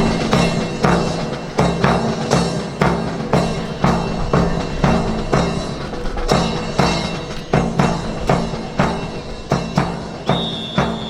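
Drums beating a steady marching rhythm, about two strokes a second, over a held low musical tone. A high whistle-like tone is held from just before the end.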